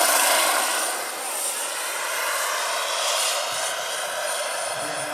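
Turbine-powered 1/6-scale K-Max model helicopter in flight, its GP70 model gas turbine giving a steady high whine over the rush of its twin rotors. It is loudest near the start, then eases slightly.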